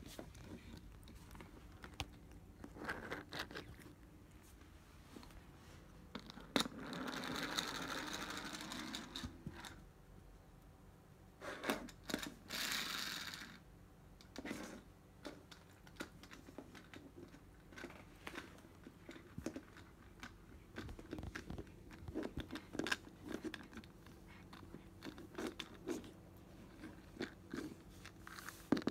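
A cat playing with a plush toy mouse on a wooden floor: scattered soft taps and rustles, with two longer scratchy rustling noises in the first half.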